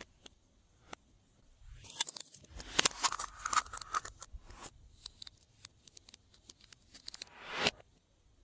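Slime being worked by hand, making sticky clicking and crackling pops. Near the end a squelch swells and cuts off suddenly.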